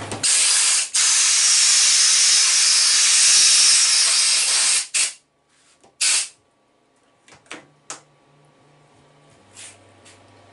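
Compressed-air blow gun hissing in one long blast of about five seconds, then two short bursts, blowing chips and coolant off a machined aluminium block.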